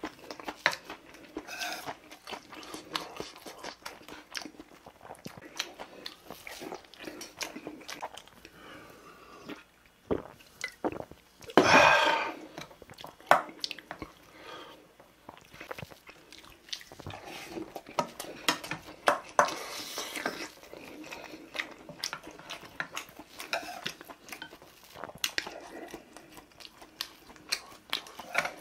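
A person chewing and biting mouthfuls of food close to the microphone, with short clicks of a wooden spoon and chopsticks against a steel bowl. A louder burst of noise comes about twelve seconds in.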